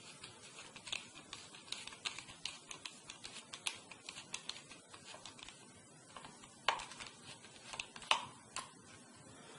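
Small screwdriver backing a screw out of a laptop hard drive's metal bracket: faint, irregular little metal clicks and ticks, with a few sharper clicks in the second half.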